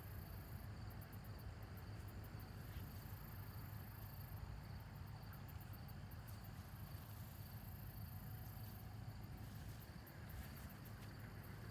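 Insects chirping in three spells of very high, rapid pulsed trills over a steady low rumble.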